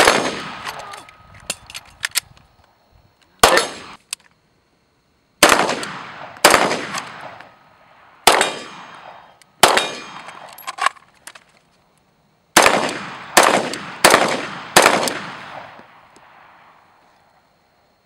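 Rifle shots fired one at a time, about ten in all at uneven spacing of one to two seconds, each sharp crack trailing off in a long echo, with a few faint clicks between the first shots.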